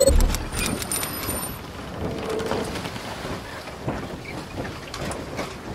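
Logo intro sound effect: a deep boom at the start, a brief high shimmer, then a steady crackling hiss like rain with scattered clicks.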